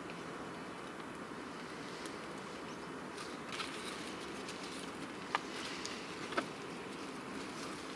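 Steady outdoor background hiss with a few light clicks and scrapes, the sharpest about five and six seconds in, from a plastic bucket and a piece of corrugated cardboard being handled against a tree trunk as a bat crawls out into a hollow.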